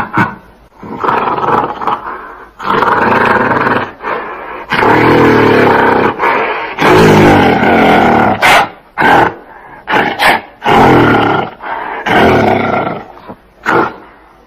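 Gorilla calling: a run of loud calls, each a second or two long, with a few short grunts in between.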